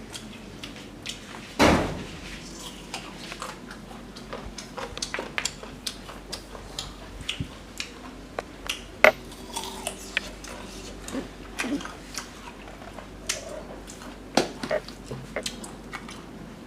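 Eating noises: irregular small clicks and clinks of utensils against a dish, with one louder knock about two seconds in.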